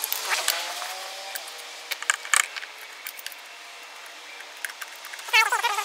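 Scattered light metallic clicks and clinks as an exhaust pipe, gasket and fittings are handled and lined up against a scooter engine's exhaust port. A short vocal sound comes near the end.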